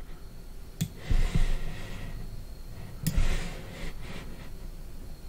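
A man breathing out twice near the microphone, about two seconds apart. Each breath is a roughly second-long airy rush, and each starts with a short sharp click.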